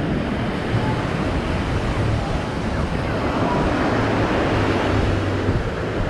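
Ocean surf washing onto a beach, a steady rush of breaking waves, with wind buffeting the microphone.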